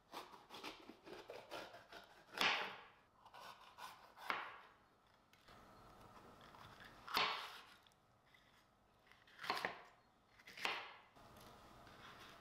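Kitchen knife slicing a red bell pepper on a wooden cutting board. A quick run of small ticks comes first, then five separate crisp cuts, each a crunch through the pepper flesh ending on the board.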